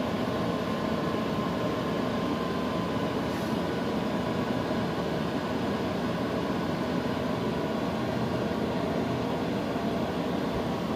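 Cooling fans of a Dell PowerEdge rack server running in a steady whir while the server goes through its power-on self-test.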